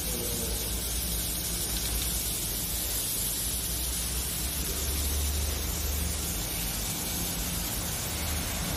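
Steady running noise and hiss of an automatic side labeling machine and its conveyor, with a low rumble swelling briefly about five seconds in.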